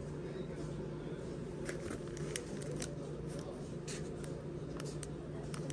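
Plastic bags of soft-plastic fishing baits crinkling as they are handled off a display rack, a run of short crackles over a steady low hum.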